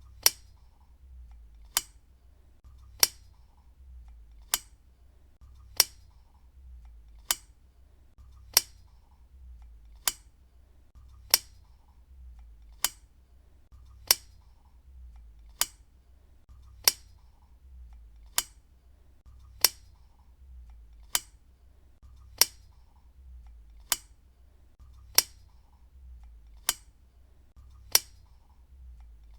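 Desk lamp switch clicked on and off over and over, one sharp click roughly every second and a half, about twenty in all.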